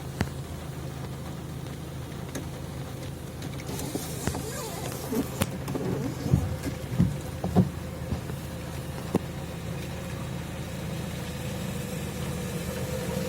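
Off-road vehicle's engine running steadily at low revs, with a scatter of short knocks and clunks a few seconds in.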